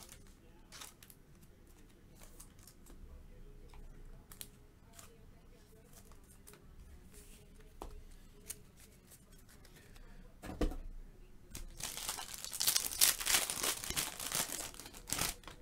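Faint clicks of trading cards being handled, then a single thump about ten seconds in. From about twelve seconds in, a foil trading-card pack wrapper is torn open and crinkled in the hands, a loud dense crackle.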